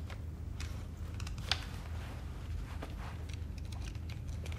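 Quiet room tone: a steady low hum with faint rustling and a few small clicks, one sharper click about a second and a half in.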